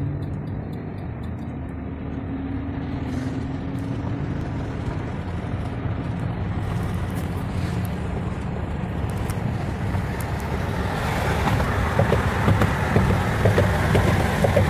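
Road noise inside a car at highway speed: a steady low rumble from the tyres and engine that grows louder and rougher about eleven seconds in. The recording is played back sped up.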